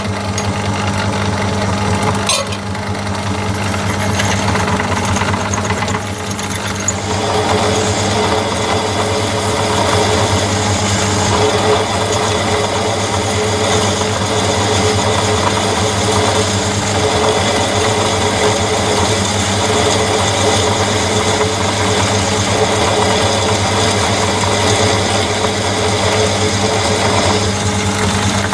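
Myford lathe running with a steady motor hum. From about seven seconds in, a twist drill fed from the tailstock cuts into the end of the spinning steel arbor, adding a higher cutting noise until just before the end.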